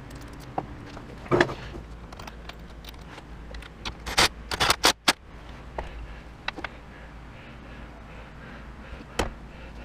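Hand tools and metal hardware clicking and clanking while battery ground cables are fitted, a handful of sharp clicks with a quick cluster of them about four to five seconds in.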